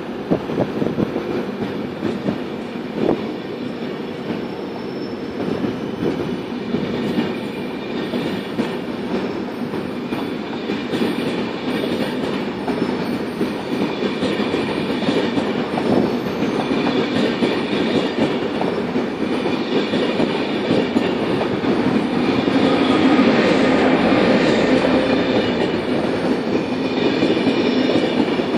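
ÖBB Railjet passenger coaches rolling past as the train pulls out, a steady rumble of wheels on rail with occasional clicks over the joints, growing slowly louder as it gathers speed. A high whine joins in after about twenty seconds.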